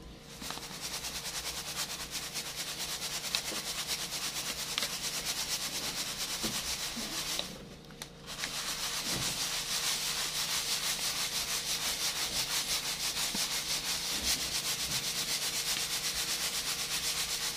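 Graham cracker crumbs being sifted through a stainless-steel mesh strainer, shaken rapidly back and forth. It makes an even, quick rhythm of scratchy rasps, with a brief pause about halfway through.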